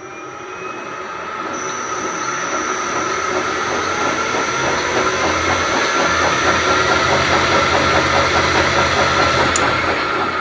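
AL960B lathe's three-phase motor, run from a variable frequency drive, spinning the headstock through a belt: it ramps up with a rising whine over the first few seconds, then runs steadily with a cyclical noise through the headstock, which the owner suspects is a belt that sat too long in one position. Near the end a click comes as the drive is stopped; its high whine cuts off and the spindle starts to coast down in free-stop mode.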